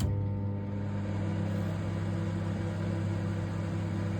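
Samsung MS23K3513AK solo microwave oven cutting in with a click and then running with a steady, loud electrical hum while heating a cup of water.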